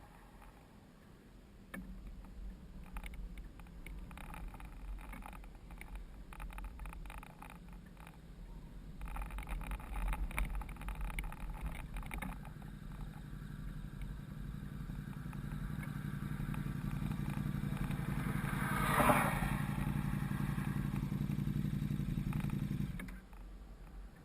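Riding a small vehicle: wind rumble on the microphone and rattles. A steady low hum then swells over the second half and cuts off abruptly about a second before the end.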